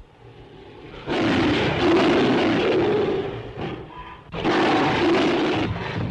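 A giant movie monster's roar sound effect: two long, loud roars, the second starting about four seconds in.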